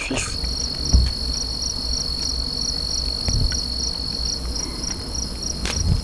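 Night insects calling, crickets by the sound: a steady high trill with a second insect's short chirps repeating about three times a second. Low handling rumble under it, with a knock about a second in.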